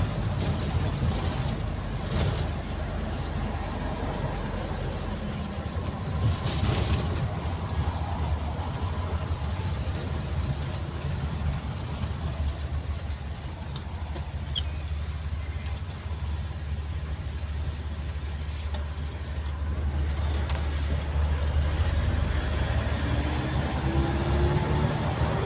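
A car driving, heard from inside its cabin: steady engine and road rumble with a few brief knocks early on. In the last few seconds the engine note rises.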